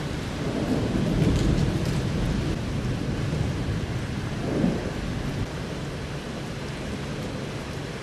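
Thunder rumbling over steady rain. The rumble is loudest about a second in, peaks again sharply around four and a half seconds, then dies down.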